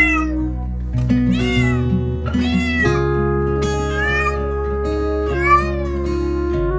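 Cat meows, about five drawn-out calls that rise and fall in pitch, over a background music track with sustained notes.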